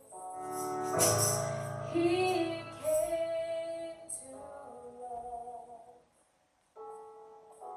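Church worship music with a woman singing, a loud full chord coming in about a second in, and a brief pause near the end.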